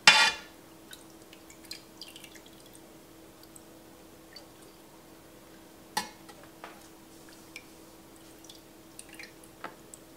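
Metal ladle clinking against a stainless steel stockpot while scooping soft cheese curds, with a loud ringing clink at the start and another about six seconds in, and soft drips and splats of whey and wet curds between.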